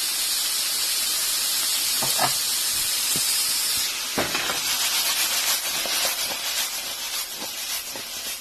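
Onions, carrots and celery sizzling in hot oil in a frying pan, a steady hiss that softens about four seconds in, with a few knocks of a utensil against the pan.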